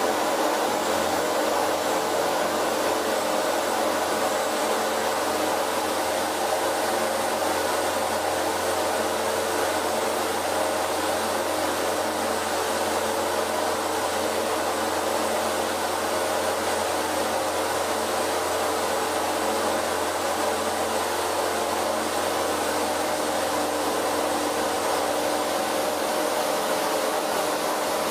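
Zenith CH 650 light aircraft's UL Power engine and propeller running steadily at takeoff power through the takeoff roll, liftoff and climb-out, a loud even drone that does not change.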